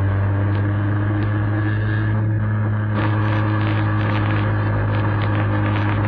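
Vespa scooter engine running steadily at riding speed, heard from the camera mounted on the scooter, with wind and road noise over it. The low engine note rises a little about three seconds in.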